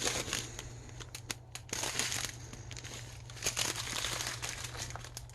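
Small plastic bags of diamond painting drills crinkling and rustling as they are handled and sorted through, with irregular sharp crackles.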